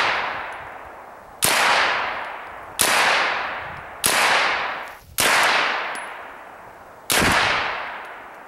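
IMI Uzi 9mm carbine fired one shot at a time: five sharp, loud shots a second or two apart, each followed by a long fading echo.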